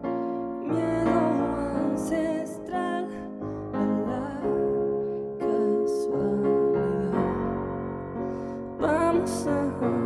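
A live band song: electric piano chords with a singer's voice held and wavering above them.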